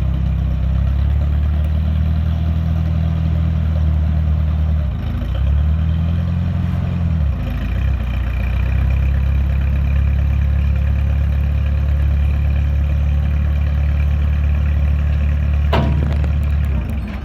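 1967 Allis-Chalmers I-600 backhoe engine running steadily. Its pitch rises and falls briefly about a third of the way in, then it settles back to a steady run. Near the end a short, sharp sweep falls quickly in pitch, and then the sound cuts off.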